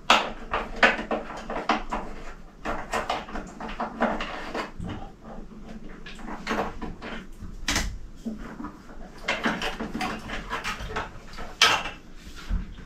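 Hands working at the pipe fittings of a hot water service: irregular clicks, taps and knocks of fittings and tools being handled, with a few louder knocks.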